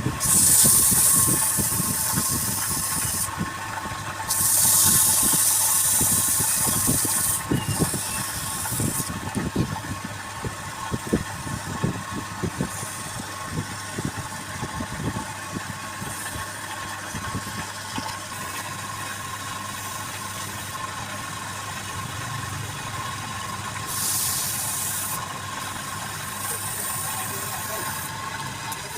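Wood lathe running with a steady hum while a turning tool cuts the spinning wood in hissing spells a few seconds long, several in the first ten seconds and two more near the end. Short rapid knocks run through the first half.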